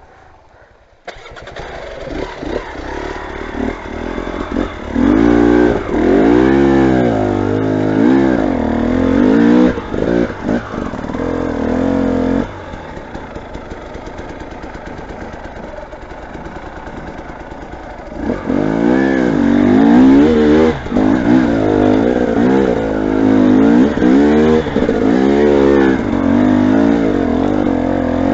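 A motorcycle engine starts up about a second in and is revved repeatedly in short blips. It settles to a lower, steadier running from about the middle, then is revved in blips again.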